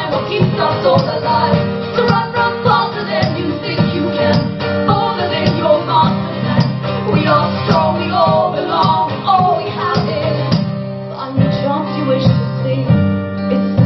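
Live acoustic band music: rhythmic strummed guitar with a wavering sung or played melody over it. The texture thins about ten and a half seconds in, then fills out again.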